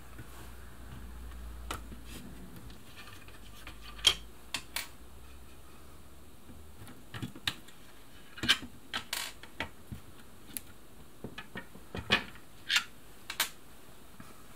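Flathead screwdriver undoing the screws of a plastic sewing-machine foot controller's cover plate: scattered sharp metal-and-plastic clicks and taps as the blade seats, turns and the screws come free, the loudest about four seconds in.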